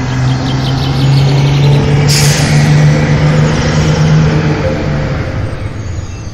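A vehicle engine running with a steady low hum that swells in loudness and then fades away. A short, loud hiss comes about two seconds in.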